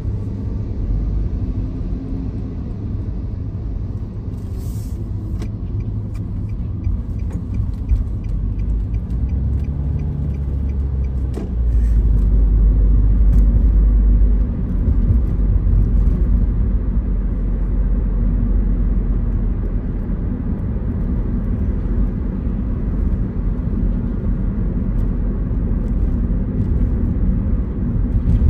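Steady low rumble of a car driving in traffic, heard from inside the cabin: engine and tyre noise on the road. It swells for a couple of seconds about twelve seconds in, and there are a few light clicks about five seconds in.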